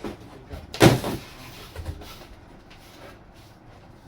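Cardboard box and packed model parts being handled: one loud knock about a second in, then a few lighter knocks and rustling.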